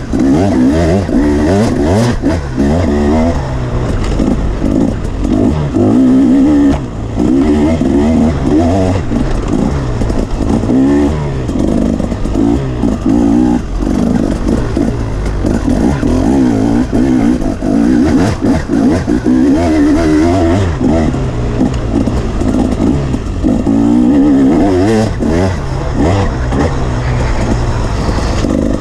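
KTM dirt bike engine being ridden hard, revving up and down again and again with the throttle, with brief dips as it is shut off and opened again.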